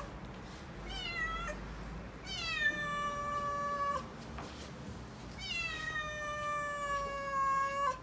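Calico kitten yowling in distress: three drawn-out meows, the first short, the other two long, each falling in pitch and then holding steady before breaking off abruptly.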